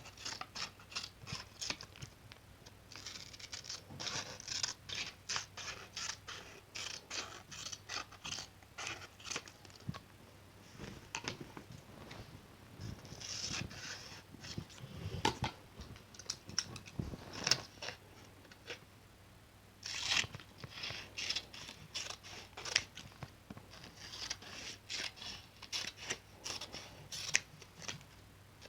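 Scissors snipping in quick runs of short, crisp cuts, with a few brief pauses between runs.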